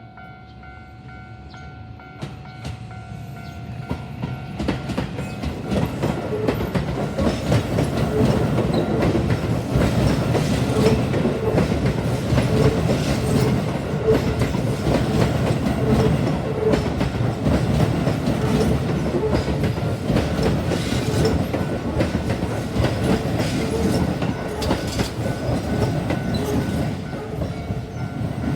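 Keio Line train passing over a level crossing: its rumble and wheel clatter build over the first several seconds, stay loud, and fade near the end. The crossing's alarm bell rings steadily, heard clearly before the train arrives and again as it fades.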